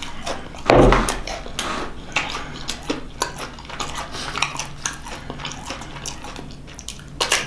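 Close-up eating noises: chewing, mouth clicks and smacks, and biting into a cracker near the end, with a loud breath out about a second in from a mouth burning from too-hot pepper sauce.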